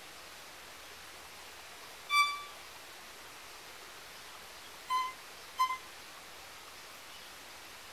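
Violin playing short, clear single notes in imitation of a pygmy wren babbler's call: one note about two seconds in, then two shorter, slightly lower notes close together around five seconds in, over a faint steady hiss.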